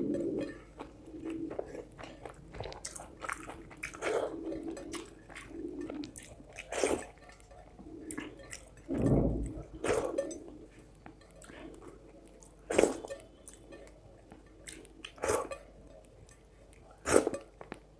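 A person chewing and biting a mouthful of rice with fish curry, with wet mouth sounds and irregular sharp crunches and smacks.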